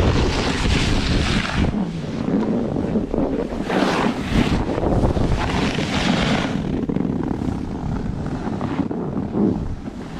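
Wind buffeting the microphone of a camera carried by a snowboarder riding downhill, with a steady low rumble. A hissing swish of the board's edge on snow comes every second or two.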